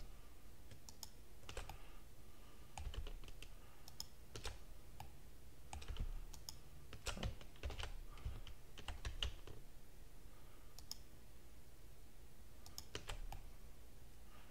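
Computer keyboard keys and mouse buttons clicking irregularly, single clicks scattered with short gaps, as modifier keys are held and edges are clicked one by one.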